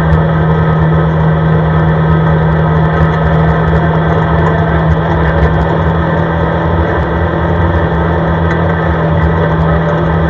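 CFMOTO ATV engine running steadily as the quad drives at an even speed, a constant drone that holds one pitch with no change in revs.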